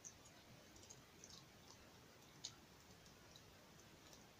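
Near silence, with a few faint, short clicks.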